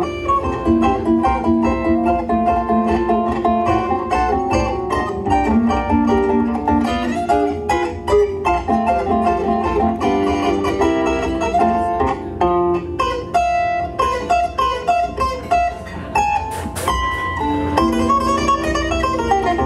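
Concert zither played live: a continuous plucked tune with many quick notes, several strings ringing together.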